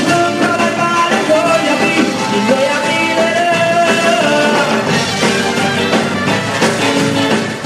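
Live band music, with a melody line that slides up and down in pitch over a full accompaniment.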